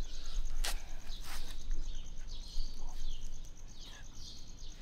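Outdoor ambience of birds calling in short, repeated falling chirps over a steady high insect trill, with two sharp clicks about half a second and a second and a half in.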